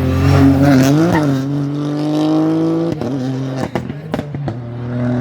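Rally car engine at full throttle, its pitch climbing steadily and then dropping sharply at a gear change about three seconds in. A quick string of sharp pops and bangs from the exhaust follows, then the engine picks up again near the end.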